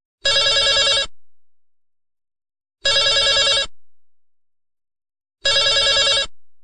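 Telephone ringing for an incoming call: three short warbling rings about two and a half seconds apart.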